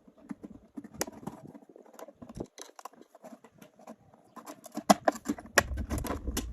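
A plastic jug being cut and handled by hand: irregular crackling, scraping and clicking of the plastic as a hole is cut in it for a tractor exhaust pipe. The clicks grow denser and louder in the second half, where a low thump or bump joins them.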